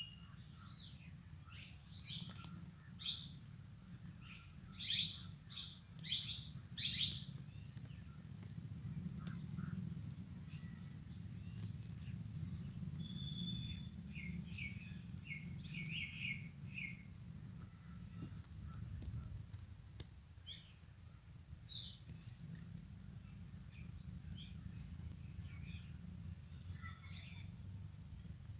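Scattered soft, short chirps and ticks, with a short run of chirps about halfway through and a couple of sharper clicks later on, over a steady faint high hiss and low hum; no continuous cricket trill.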